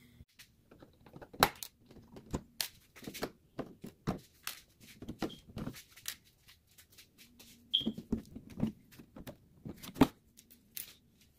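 Irregular clicks, taps and crinkles of hands handling and pulling off the plastic body shell of a 1/5-scale RC car.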